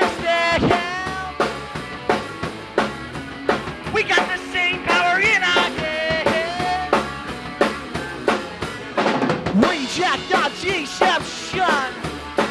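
Live punk band playing: a drum kit keeping a steady beat under electric guitar and bass, with the singer's wordless, sliding vocal lines over the top.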